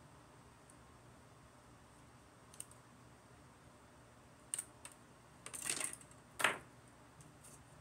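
Plastic parts of a Robin Hood Gundam model kit being handled and fitted by hand: a few light plastic clicks, a short rattle about five and a half seconds in, then a sharp snap a second later.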